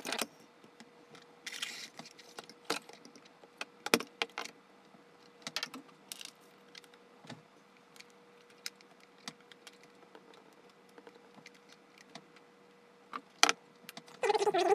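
Handling noise of a small circuit board, wires and tools on a tabletop: scattered clicks, taps and rustles, with sharper knocks about four seconds in and again near the end, over a faint steady hum.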